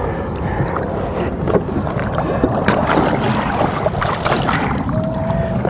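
Wind buffeting the microphone on a small boat, over a low running engine, with water splashing at the hull where a tarpon is being handled at the side of the boat.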